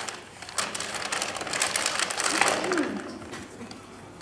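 Rustling and rapid clicking of a bag and papers being handled, building to a dense run around the middle and fading off toward the end.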